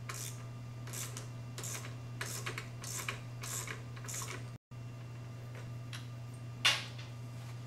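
Socket ratchet clicking in short repeated strokes, about two a second, as a motorcycle muffler hanger bolt is loosened; one sharp click near the end, the loudest sound.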